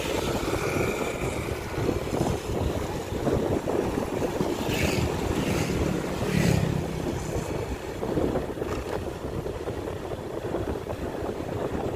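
Motorcycle riding along a wet road: steady engine and tyre noise mixed with wind buffeting the microphone. Another vehicle passes between about five and seven seconds in.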